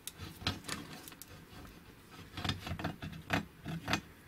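Irregular light clicks and taps of the steel gear cluster being handled and turned by a gloved hand inside a Vespa BFA 306 engine case, checking how close the gears run to the case.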